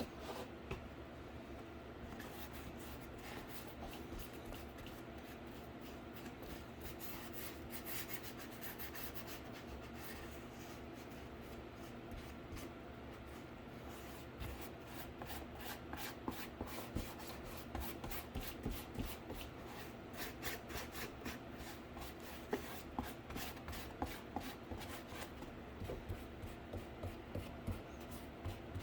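Paint being rubbed onto a cardboard PC case in repeated scratchy strokes. They start out soft and even, and from about halfway become quicker, separate strokes of two or three a second.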